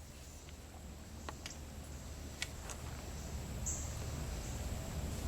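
Quiet handling of a seat belt assembly: a few faint light clicks and a brief rustle about three and a half seconds in, over a low steady hum.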